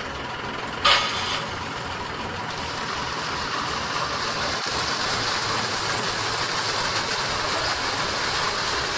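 52 HP diesel-engine-driven dewatering pump running steadily, with one short loud burst about a second in. From about two and a half seconds in, the rushing splash of water starts and grows louder as the pump begins discharging flood water onto the ground.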